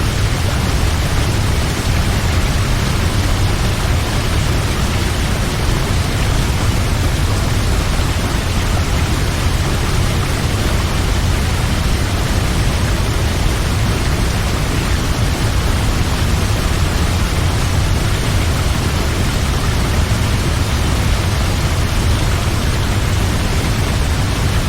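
Waterfall: a steady, dense rush of falling water, unchanging and loud, with heavy low rumble.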